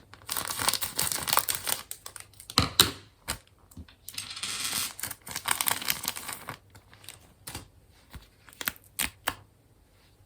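Crinkling and rustling, broken by sharp light clicks and taps: small storage items and their packaging being handled.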